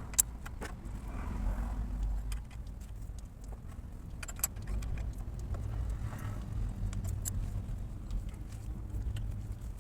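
Scattered sharp metallic clicks and clinks of hand tools and parts during repair work on a vehicle, one sharp click just after the start, over a steady low rumble.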